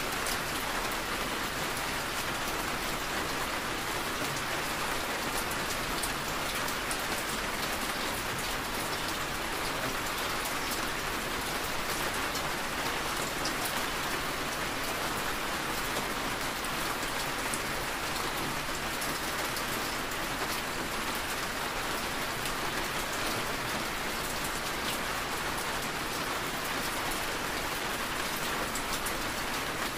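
Steady rain striking the car's roof and windshield, heard from inside the cabin, with many small drop ticks over an even hiss.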